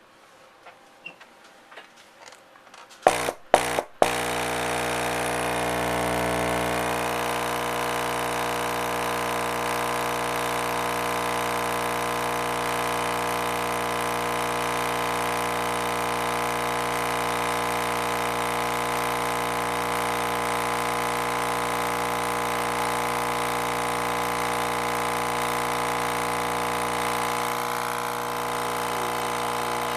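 RE Audio SX 12-inch subwoofer driven directly from a 120-volt wall outlet, giving a loud, steady mains-frequency buzz as the cone is pushed by raw AC. It cuts in with three short bursts about three seconds in, then runs continuously.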